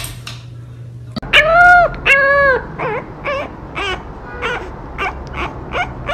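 French bulldog puppy crying: starting about a second in, two long whining cries that rise and fall in pitch, then a string of short whimpering yips, about two a second.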